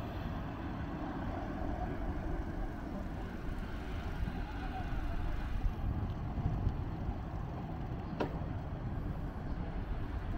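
Steady low rumble of outdoor city ambience, with a single sharp click about eight seconds in.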